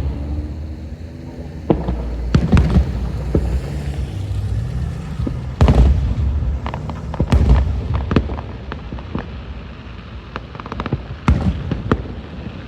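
Fireworks going off: a loose series of sharp bangs and booms at irregular intervals, a dozen or so, the loudest about halfway through.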